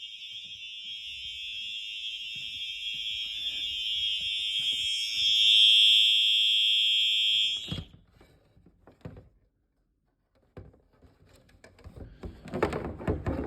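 Simplex 4903-9236 horn strobe sounding one continuous electronic horn tone. It swells louder and then cuts off suddenly a little under eight seconds in. The owner finds it pretty quiet for this horn, for no reason he knows. A couple of knocks follow, then handling noises near the end.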